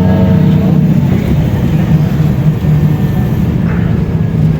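Diesel engine of a Mercedes-Benz O500U city bus with a ZF automatic gearbox, running steadily under way.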